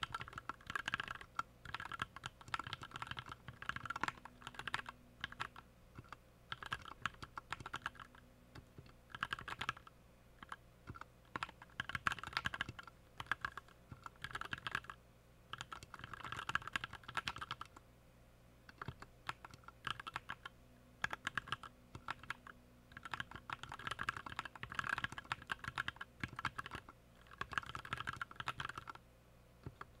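Fast touch-typing on a Skyloong GK61 Pro 60% mechanical keyboard during a typing-speed test: quick runs of key clicks come in bursts of a second or two, word by word, with short pauses between them.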